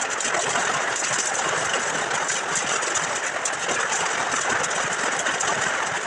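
Heavy rain falling steadily on a corrugated metal roof: a constant, loud hiss.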